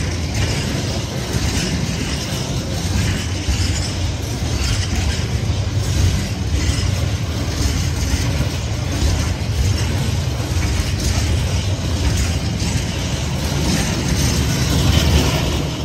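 Freight train wagons rolling over a level crossing: a steady low rumble with a repeated clatter of wheels.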